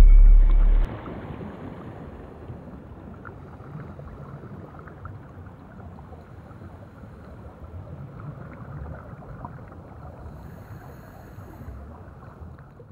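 Soundtrack ambience: a deep, loud boom at the start, then a steady low rumbling noise that cuts off suddenly at the end.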